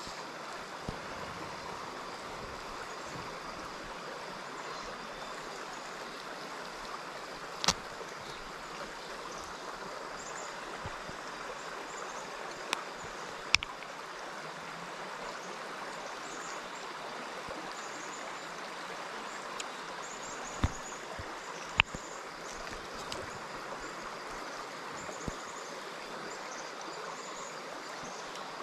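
Small rocky stream running steadily over stones, an even water rush throughout. A few short, sharp clicks stand out about 8, 13 and 21 seconds in.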